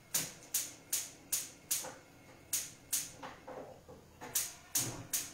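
Gas hob's electric spark igniter clicking as a burner is lit, a sharp tick about two and a half times a second with a short break about two seconds in.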